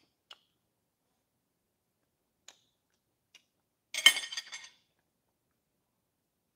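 Fork and knife clinking against a plate: a few faint taps, then a short burst of clinks about four seconds in.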